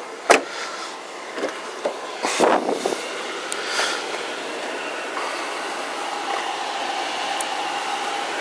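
A door latch clicks open on a 2003 Ford Explorer, followed by a few knocks and rustles of handling. A steady whirring hum from the SUV's air conditioning then runs on.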